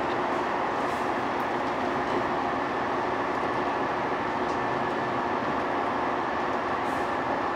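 Steady running noise of a KiHa 187 series diesel railcar: an even rushing hiss with a faint constant hum.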